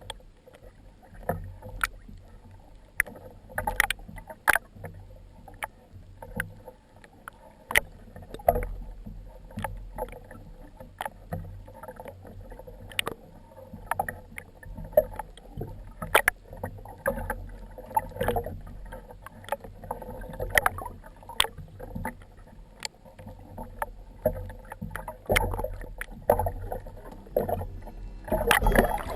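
Water sloshing and splashing around a waterproof action camera, with a low rumble and many irregular sharp clicks and knocks.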